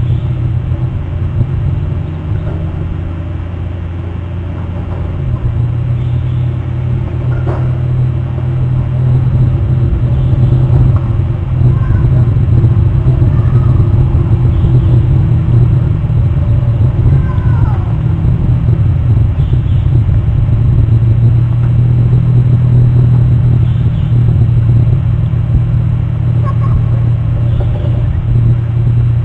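A loud, steady low rumble with a droning hum, growing louder a few seconds in, with a few faint short high chirps over it.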